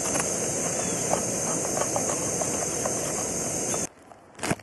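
Jetboil canister stove's gas burner running steadily under a pot of boiling water, then shut off suddenly near the end, followed by a single knock.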